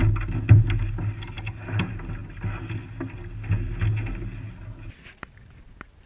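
Steady low wind rumble on the camera microphone, with scattered sharp clicks and knocks. It drops off abruptly about five seconds in, leaving a few faint footsteps on ice.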